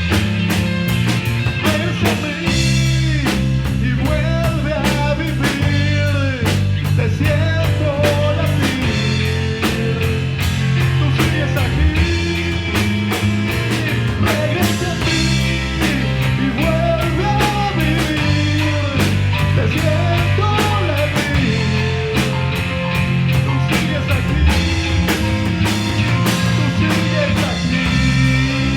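Rock band playing live without vocals: a drum kit keeping a dense steady beat, bass guitar, and a lead guitar playing bending, gliding notes over the top.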